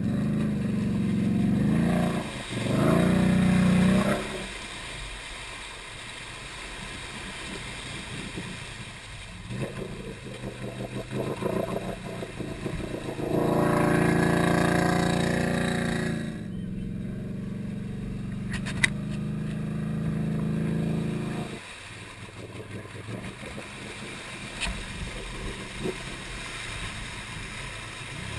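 Can-Am Renegade ATV engine revving in bursts while the quad pushes through deep mud and water; the longest and loudest rev comes around the middle, and the engine runs lower and more unevenly near the end.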